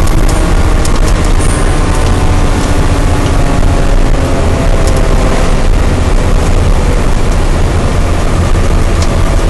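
Fire engine's engine and road noise heard from inside its cab while driving, a loud steady rumble. A few faint tones slowly fall in pitch during the first half.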